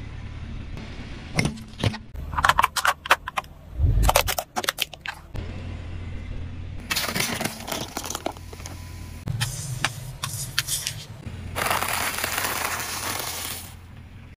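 A car tyre rolling over and crushing objects, over the low rumble of the car. A run of sharp cracks and crunches comes in the first third, then longer stretches of crackling and crumpling.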